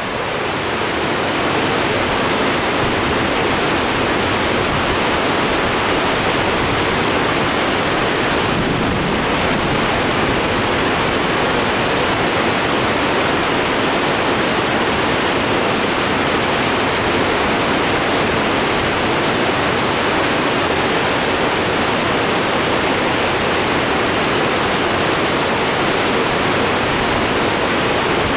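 Loud, steady rush of creek water pouring over a dam and through the rapids below it; the creek is running high and turbulent after rain.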